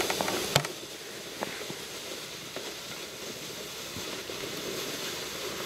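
Steady wind noise, an even rushing hiss, with a few sharp clicks in the first half second.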